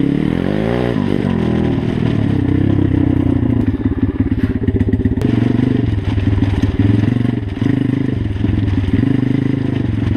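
Dirt bike engine running while riding. Its pitch rises and falls over the first two seconds, then holds fairly steady with small throttle changes.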